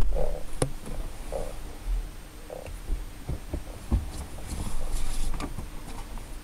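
Muffled knocks, clicks and rustling inside a car cabin over a low steady rumble: a loose dashcam picking up handling noise and an occupant's clothing brushing close to it.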